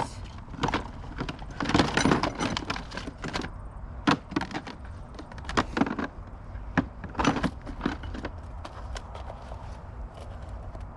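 Small metal hardware clinking and rattling as it is handled: steel sleeve anchors being sorted through, in irregular clusters of sharp clinks, busiest in the first few seconds.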